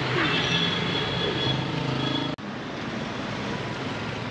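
Motor traffic with motorbike engines running and passing, some sliding in pitch; the sound breaks off sharply about two seconds in and goes on as a steadier street traffic hum.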